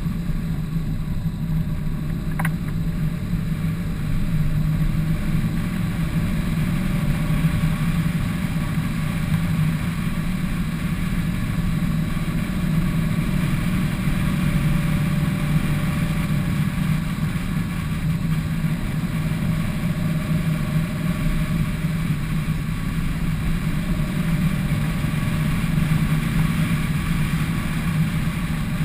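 Car driving at a steady pace: a constant engine drone with road and wind noise, picked up by a camera on the car's roof.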